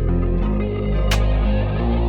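Electronic background music with a deep sustained bass line and chords that change in steps, punctuated by a sharp percussive hit about once every second and a half.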